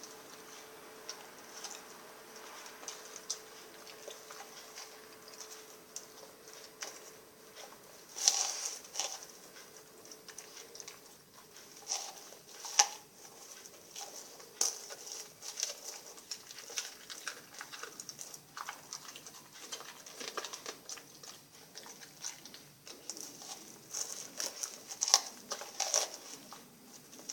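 Rottweiler eating sardines: irregular wet chewing and crunching clicks, with a few louder crunches.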